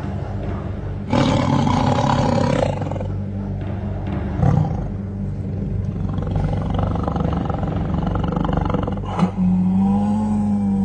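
Loud roaring in a film soundtrack over a steady low drone, with a noisy surge about a second in and a long, wavering pitched roar near the end.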